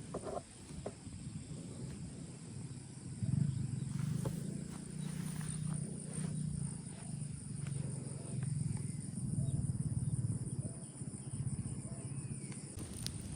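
Crickets chirping steadily in a high, even trill, with a louder low-pitched pulsing sound that starts about three seconds in and repeats in short pulses until near the end.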